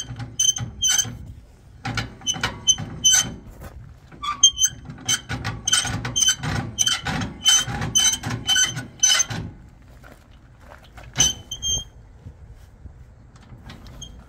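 Trailer jockey wheel being wound, its dry winding mechanism squeaking with each turn at about two to three squeaks a second. The squeaking stops about nine seconds in, and two more squeaks follow a couple of seconds later. The squeak is the sign of a dry mechanism that needs grease.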